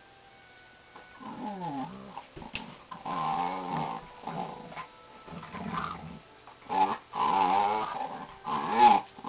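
Two dogs play-wrestling, growling in repeated rough bouts that start about a second in and grow louder near the end.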